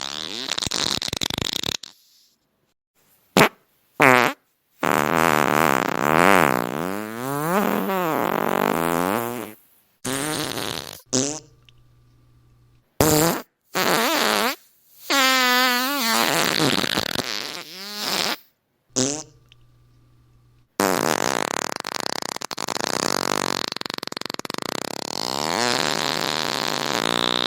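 A string of about ten fart sounds separated by short silences: some are brief blasts, others last several seconds with a wavering, bending pitch, and the last one runs on for about six seconds.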